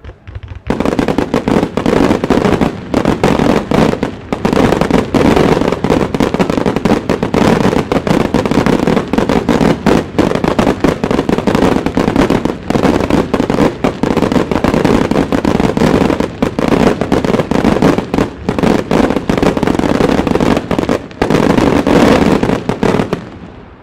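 Wide starmine fireworks barrage: a dense, rapid volley of loud bangs and crackling shell bursts fired from a nearby launch site, starting abruptly about a second in and cutting off shortly before the end.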